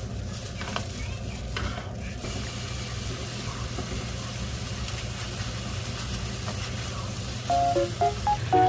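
Food sizzling in a frying pan while being stirred, with a few utensil clicks in the first two seconds over a steady low hum. Light background music comes in near the end.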